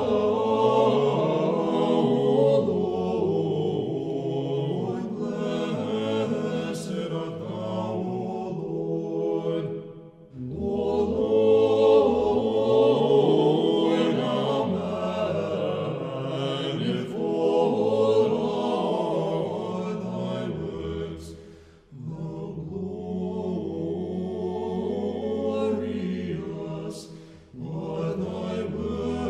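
Orthodox church chant sung by a choir in slow, sustained phrases, pausing briefly between phrases about ten, twenty-two and twenty-seven seconds in. A low held bass note sounds under the phrase after the second pause.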